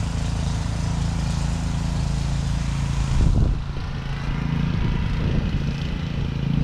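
A small engine running steadily with a constant low hum, and a brief bump of handling noise about three seconds in.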